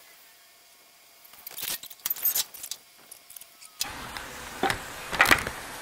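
Light metallic rattling and sharp clicks, like jingling keys, for about a second and a half. From about four seconds in, a steady rush of handling noise and further knocks as the camera is picked up and moved.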